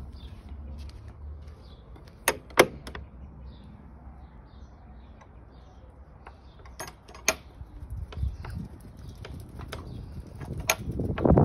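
Sharp clicks and knocks: two loud ones close together about two seconds in, then scattered lighter ones, over faint chirping from small birds. A rustle builds near the end.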